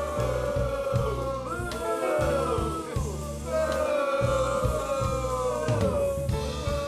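Music with singing over a repeating bass line.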